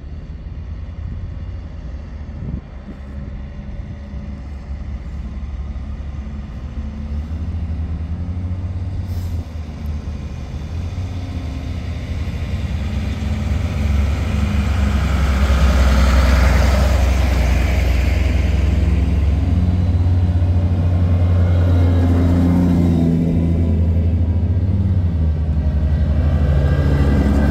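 Military convoy vehicles' engines running as they drive past one after another. A camouflaged truck passes close about halfway through, and a wheeled armoured vehicle passes near the end. Each time the engine noise swells to its loudest.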